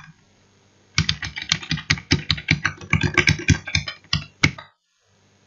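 Fast typing on a computer keyboard: a dense run of key clicks that starts about a second in and stops about a second before the end.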